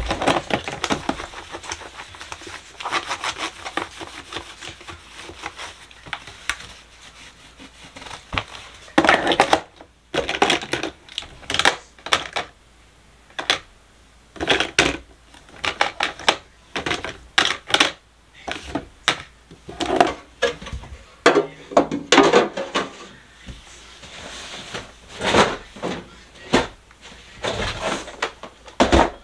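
Plastic makeup tubes, lipsticks and a powder compact clicking and clacking as they are set down and shuffled in hard white plastic drawer bins, a run of irregular light knocks. It follows a stretch of softer rubbing as a bin is wiped out.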